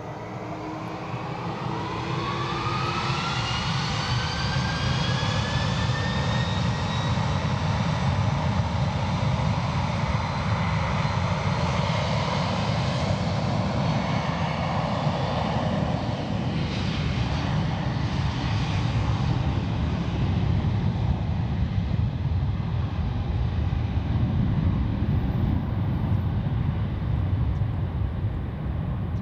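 Jet airliner's engines spooling up, a whine rising in pitch over the first several seconds as the sound grows louder, then settling into a steady, loud roar.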